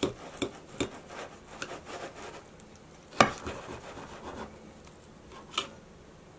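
Serrated steak knife sawing through a cooked striploin steak on a ceramic plate in a run of short, quick strokes. A sharp click comes about three seconds in, the loudest sound, and another near the end.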